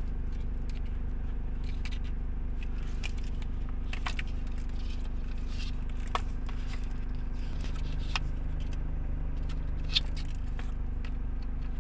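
Hands handling phone packaging, a clear plastic jelly case and paper inserts, giving light scrapes and a few sharp clicks about two seconds apart, the sharpest near the end, over a steady low hum.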